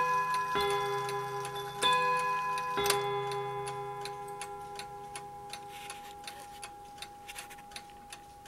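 Sessions mantel clock striking the hour on its two-note bim-bam gongs: strikes alternating between two pitches, the last one about three seconds in, then the tones ring down while the movement ticks steadily.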